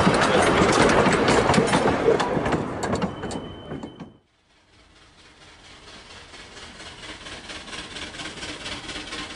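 Open carriages of a 2 ft gauge narrow-gauge train roll past close by, their wheels clattering rhythmically over the rail joints and fading as they move away, with a thin high whine for about a second near the end. After a sudden cut, another train is heard approaching, its rhythmic clicking slowly getting louder.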